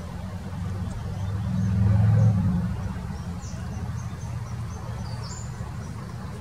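A low rumble swells and fades about two seconds in, with short, high bird chirps scattered over it.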